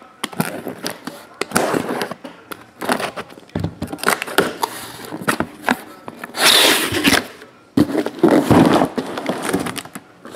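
A cardboard shipping case being opened and lifted away by hand, with a busy run of cardboard scraping, rustling and crackling and short knocks as the boxes inside are handled. The longest rustles come a little past the middle.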